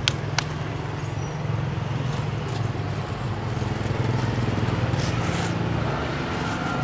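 Motor scooter engine idling steadily close by. Two sharp clicks come in the first half second.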